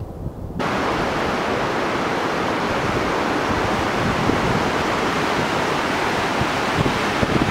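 Steady, loud rush of a fast mountain river's white-water rapids over boulders, cutting in suddenly about half a second in after a low wind rumble.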